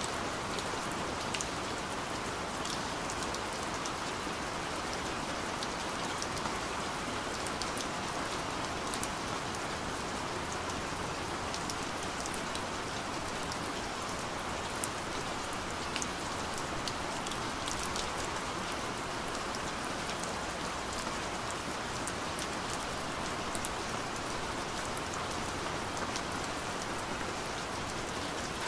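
Steady rain falling: an even hiss with scattered sharp ticks of individual drops striking.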